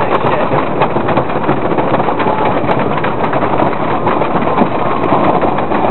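Rolling Thunder wooden roller coaster train running along its wooden track with a steady, loud rattle.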